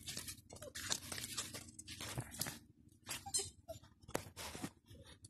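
Puppies scuffling about on a concrete path: irregular short scraping and rustling noises.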